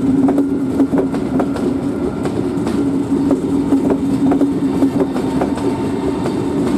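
SBB ETR 610 tilting electric train rolling slowly past, with a steady hum and its wheels clicking irregularly over rail joints and points.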